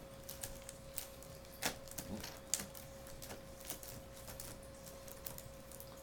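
Dell Inspiron 1720 keyboard keys clicking and the keyboard tray snapping as gloved hands press it down to seat it back into the laptop. The clicks are scattered and irregular, with two louder snaps about a second and a half and two and a half seconds in.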